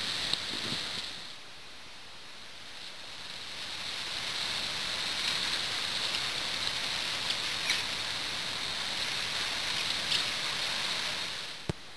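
Steady rushing hiss of fast-flowing flood water in a swollen river. It drops away about a second in and builds back up over the next few seconds.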